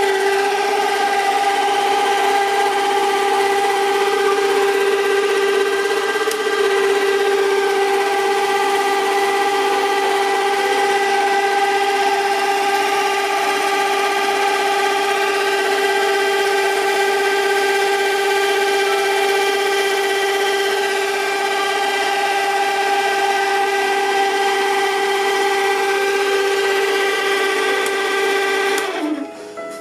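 Bell & Howell 8 mm film projector running: a steady, loud motor whine that slides down in pitch and stops near the end as the projector is switched off.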